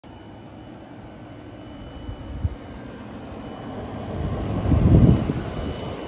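Frigidaire window air conditioner with heat, running in cool mode: a steady drone of its fan and compressor that grows louder, with a stronger low rumble, about four to five seconds in.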